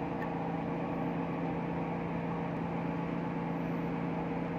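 Steady machinery drone with a few constant hum tones, unchanging throughout.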